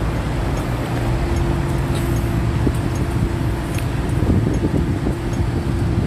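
Steady road traffic noise, with vehicle engines running in the street.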